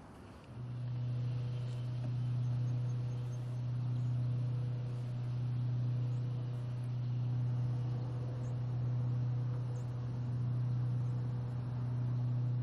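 A steady low hum with faint overtones, swelling gently about every two seconds; it starts about half a second in and cuts off sharply at the end.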